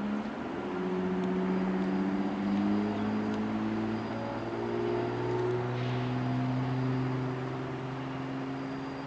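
Union Pacific diesel locomotives leading a double-stack intermodal train toward the listener: engines running with a steady low drone and several overlapping tones that drift slowly in pitch, getting louder at the start.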